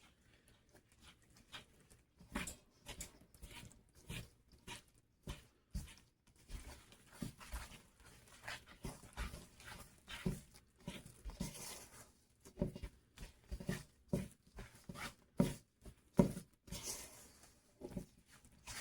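Thick chocolate batter being stirred by hand in a mixing bowl: irregular wet squishing and scraping with frequent small clicks of the utensil against the bowl.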